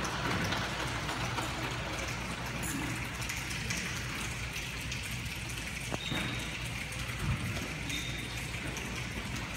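A large choir making a rainstorm with their hands: a steady hiss like light rain, with a few faint clicks.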